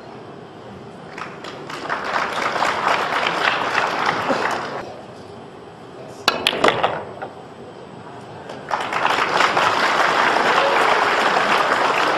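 Audience applauding, dying away about five seconds in; then a few sharp clicks of pool balls, the cue striking the cue ball and the cue ball hitting the 8 ball, and the audience applauding again from about nine seconds in as the 8 ball is potted.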